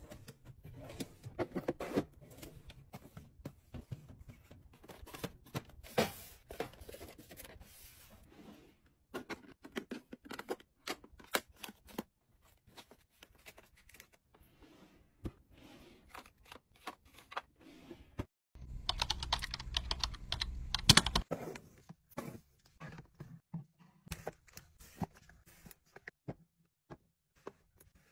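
Plastic makeup compacts and small cardboard skincare boxes being set down and tucked into organiser drawers and onto a shelf: a run of light clicks and taps, with a louder rubbing stretch about two-thirds of the way through.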